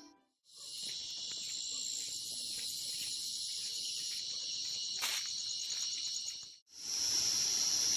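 Dense chorus of field crickets calling: a steady shrill trill with a faster pulsing trill above it. The sound drops out briefly near the start and again near the end, and there is a single sharp click about five seconds in.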